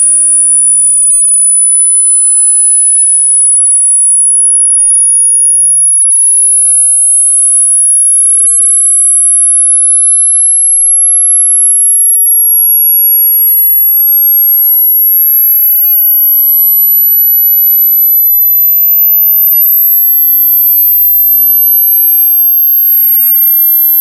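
Very high-pitched, loud, pure electronic tone that climbs slowly and steadily in small steps.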